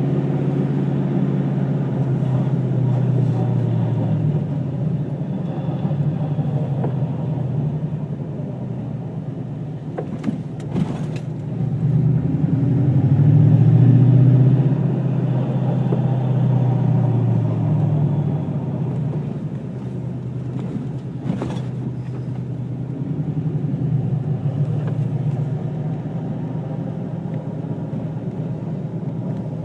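2002 Ford Mustang GT's 4.6-litre V8 running with a steady low drone that swells and eases, with two brief clicks, one about a third of the way through and one about two-thirds through. The owner hears a strange noise from the transmission/clutch area but is unsure the recording picks it up.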